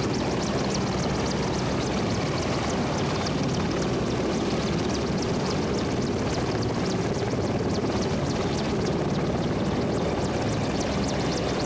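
Merlin helicopter's three turbine engines and rotor running steadily and loudly while it hovers and sets down, with a fast, regular beat from the rotor blades.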